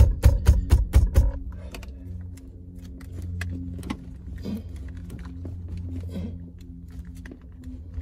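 Acura RL steering wheel being shaken hard back and forth on its column shaft to free it from the splines, knocking rapidly about five or six times a second, stopping about a second in. After that, a steady low hum with scattered faint clicks.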